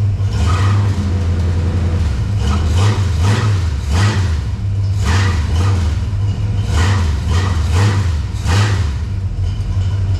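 Dodge D100's small-block V8 running, with about ten short throttle blips: the low drone wavers and a brief rush swells with each blip.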